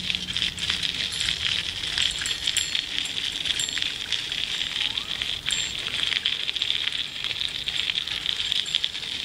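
Bicycle riding along a paved path: a steady hiss with constant crackling and rattling clicks.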